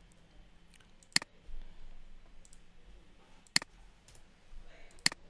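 Sharp clicks of a computer mouse and keyboard during code editing: three loud ones about one, three and a half and five seconds in, with fainter ticks between.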